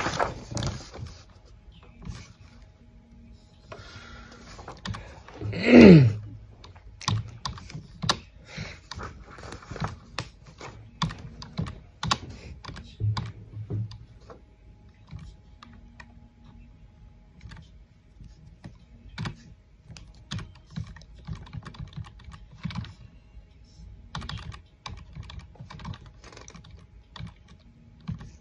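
Irregular light clicks and taps, at times several a second, with one short louder sound falling sharply in pitch about six seconds in.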